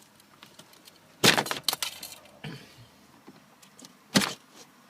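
Plastic center dashboard trim panel of a 2005 Scion xA being pulled out, its retaining clips snapping loose: a rapid cluster of sharp cracks and clicks a little over a second in, a lighter one around two and a half seconds, and a single sharp crack near the end.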